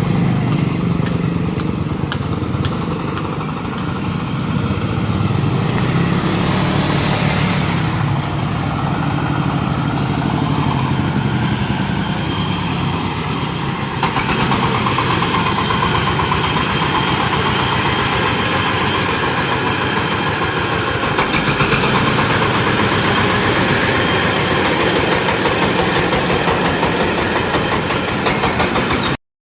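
Engine-powered corn sheller machine running steadily. About halfway through, the sound turns brighter and denser with a fast rattle, then it cuts off abruptly near the end.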